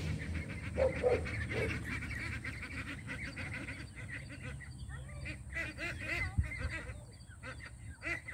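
A flock of white domestic ducks quacking, many short calls overlapping one another.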